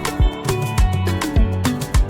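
Upbeat background music with a steady drum beat, deep bass and plucked melodic lines.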